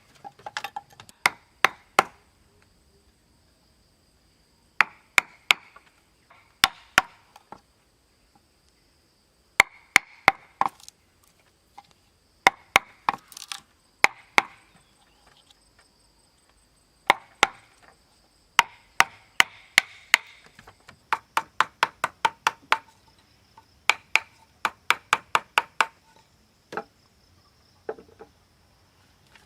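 Wood being chopped with a hand tool: bursts of three to eight sharp strikes, about three a second, with short pauses between them.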